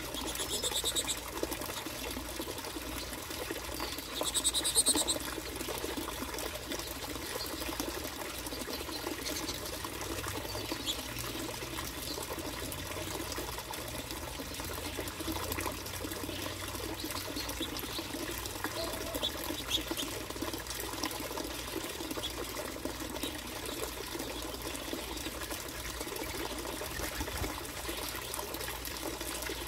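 Finches chirping in two short high bursts, about a second in and again around four and a half seconds, over a steady low rushing background.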